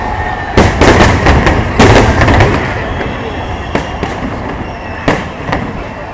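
Aerial fireworks bursting: two quick volleys of sharp bangs in the first half, then a few single cracks as the display thins out.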